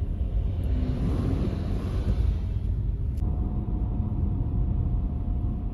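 Road noise inside a moving car on a snow-covered highway: a steady low rumble of tyres and engine. About three seconds in there is a click, followed by a faint steady tone.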